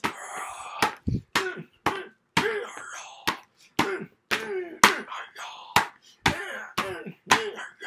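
A man making short grunting, punch-like vocal sound effects for a mock fight, mixed with quick sharp hits about two a second as two handheld items are swung at each other.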